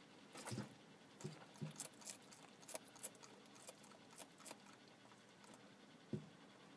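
Bearded dragon eating, with faint irregular crunchy clicks of its chewing and a few soft low knocks.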